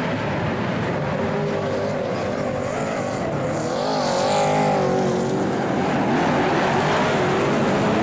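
A pack of super saloon dirt-track race cars with V8 engines revving, their pitches rising and falling against each other as the field goes by. It gets louder from about four seconds in as the cars accelerate away at the race start.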